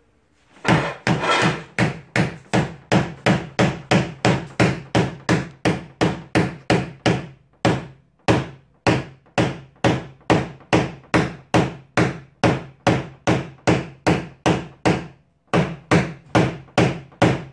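A hammer rapidly tapping a nylon knockdown punch against a ZAZ Chance's sheet-metal bonnet, about two to three sharp taps a second, with two short pauses, one a little before the middle and one near the end: knocking down the high spots around a hail dent during paintless dent repair.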